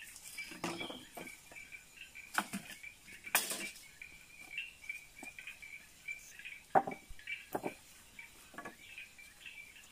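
Thin wooden branches knocking and clattering against rock as they are handled and laid down, a handful of separate knocks. A continuous high chirping goes on behind them.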